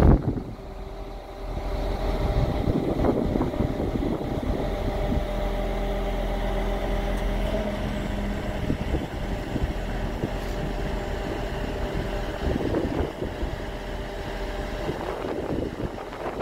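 Scania G490 truck's 13-litre inline-six diesel running steadily, powering the hydraulics of the Fassi F990 loader crane while its boom telescopes out. There is a brief loud thump at the very start.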